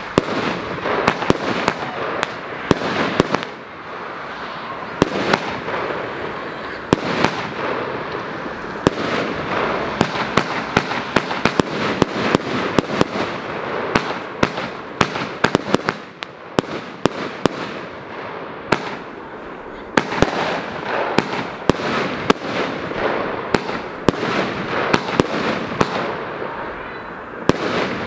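A consumer firework battery (the "Lønstrup" cake) firing: shots launching one after another with bangs and crackling bursts, dense and continuous with a few brief lulls.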